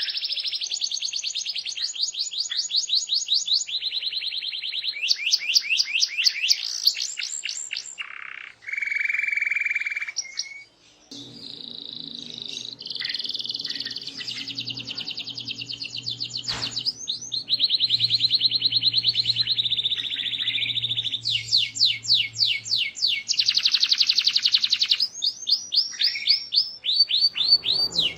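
Domestic canary singing vigorously in one long, continuous song of high, fast trills and rolls, switching to a new trill every second or two. A lower, steadier phrase comes about a third of the way in.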